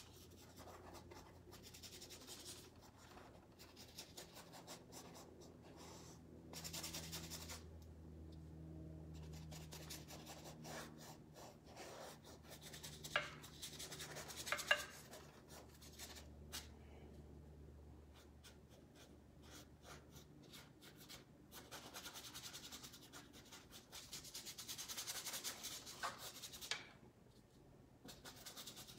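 Dry paintbrush scrubbing acrylic paint onto canvas: faint, irregular scratchy strokes, with a couple of sharper clicks about halfway through.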